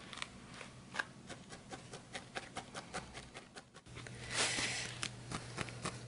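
Barbed felting needle stabbing repeatedly into a wool ball on a foam pad, giving faint, quick ticks about four or five a second, with a brief rustle of handled wool about two-thirds through.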